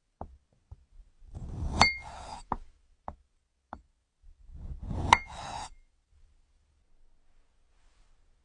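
Light taps and clicks, with two short rustling swells about three seconds apart. Each swell holds a sharp clink that rings briefly.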